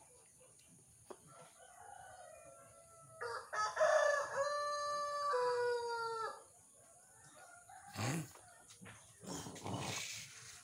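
A rooster crowing once: a long call of about three seconds, held on one pitch and then dropping at the end.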